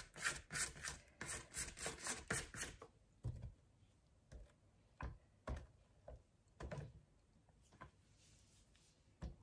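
Spatula scraping around a plastic mixing bowl of creamed butter, sugar and eggs: quick short strokes, about four a second, for the first three seconds, then a few separate taps and knocks.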